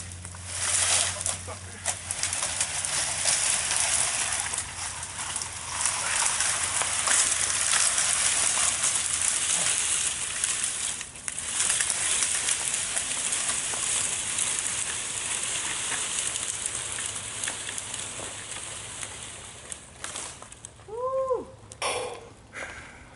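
A burning pile of cut limbs, the fire giving a steady rushing hiss with light crackling that dies down near the end.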